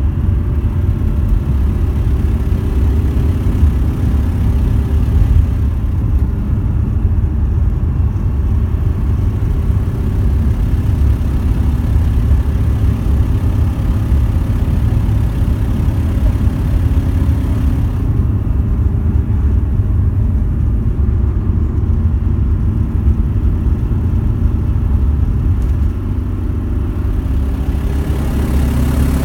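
Volkswagen T4 van engine running with a steady low rumble. The higher hiss eases off twice, for a few seconds each time. This is the weird engine noise the owner hears when accelerating.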